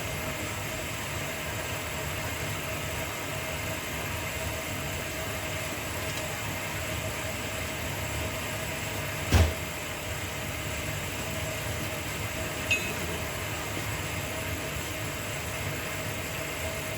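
Steady hum of a running machine motor, with a single sharp knock about nine seconds in and a faint click a few seconds later.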